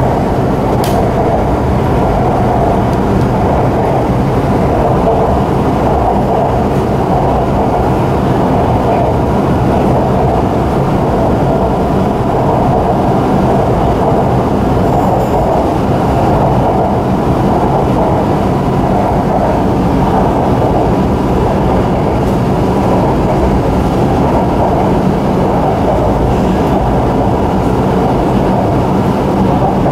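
Shanghai Metro Line 9 train running, heard from inside the passenger car: a steady, even low rumble of the train in motion.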